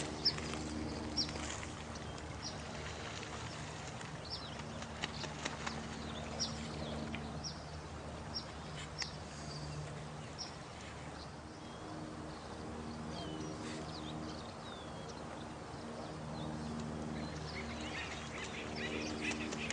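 Night nature soundscape: many short, high falling chirps and scattered clicks over low, pitched animal calls that come and go every few seconds, with a faint even hiss beneath.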